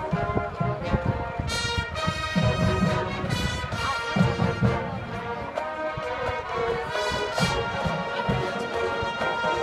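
Marching band playing a brass-led tune outdoors in a stadium, with held chords over a steady low beat.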